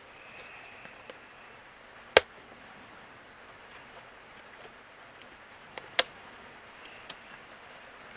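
Two sharp clicks about four seconds apart, with a few faint ticks between them: small hand tools or plastic parts being handled during model work.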